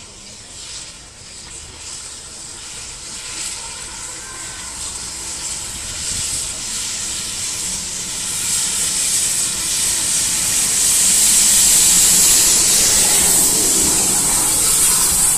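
Steam locomotive hauling a passenger train into the station, its steam hiss growing steadily louder as it approaches and runs past close by.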